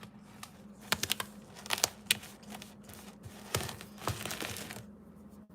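Kitchen handling sounds while an egg is fetched and cracked for cookie dough: scattered sharp taps and clicks, with a stretch of crinkling rustle about three and a half seconds in.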